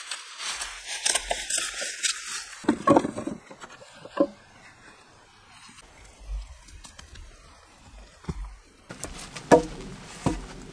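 Crinkling and rustling of a plastic rain poncho, then a few dull knocks from wooden branches and poles being handled.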